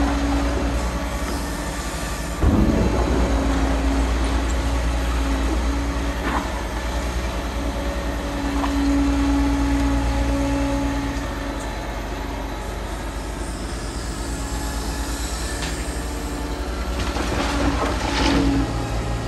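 Liebherr R940 Demolition excavator's diesel engine running under load with a steady hum, the engine note swelling for a few seconds around the middle. A sharp metallic clank about two and a half seconds in, and a burst of scraping and grinding near the end.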